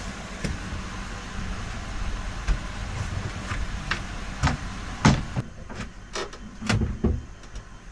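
Wooden frame being test-fitted into an opening: a series of knocks and clicks of wood being handled and pressed into place, loudest about five seconds in, over a steady background noise that thins out shortly after.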